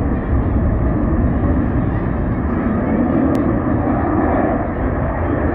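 Jet noise from an F-22 Raptor's twin Pratt & Whitney F119 afterburning turbofans passing overhead: loud and steady, heaviest in the low end. A brief click comes a little over three seconds in.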